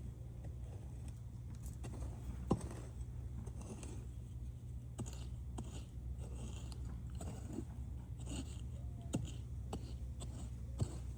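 Garden soil being worked by hand while planting beans: irregular scraping and crunching, with a sharper knock about two and a half seconds in and another near the end.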